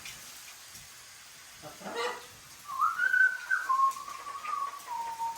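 A short rising call about two seconds in, then a long clean whistle that starts high and steps down in pitch twice, holding each note.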